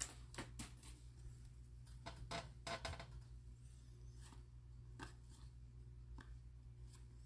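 Faint, scattered clicks and flicks of Donruss baseball cards being handled and slid apart in the hands as they are fanned and sorted.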